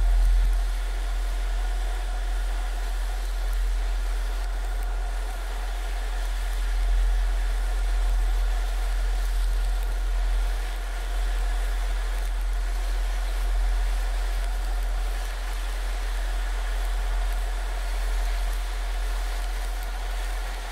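Quadcopter's electric motors and propellers whining steadily, heard from the camera on board, over a deep wind rumble on the microphone.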